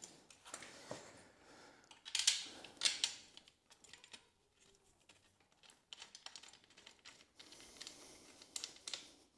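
Clicking and rattling of aluminium extrusion profiles and small metal fittings being handled and fitted together by hand, with two louder sharp clacks about two and three seconds in.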